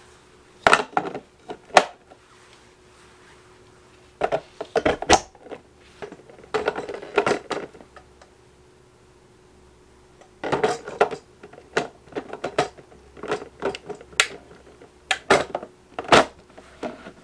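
Plastic and metal parts of a vertical slow juicer clicking and clattering as they are fitted together: the strainer basket, bowl and hopper being set onto the base. Sharp clicks and knocks come in clusters, with a short quiet stretch about halfway through.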